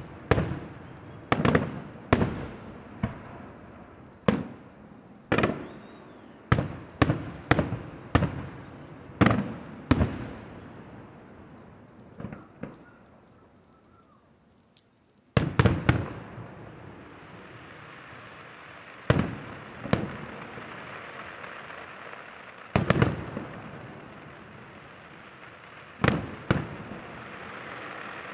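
Aerial firework shells bursting in a rapid string of sharp bangs, one or two a second, then a lull of a few seconds. About halfway through a loud burst opens a dense crackle of crackling-star shells, with a few more bangs through it to the end.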